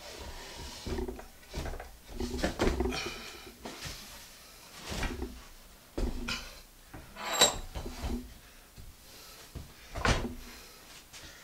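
A heavy wooden slab with a cast-iron vise bolted underneath is turned over and set down on a workbench: a series of wooden knocks and bumps, the loudest a sharp clink with a short metallic ring about seven seconds in, and another solid thump about ten seconds in.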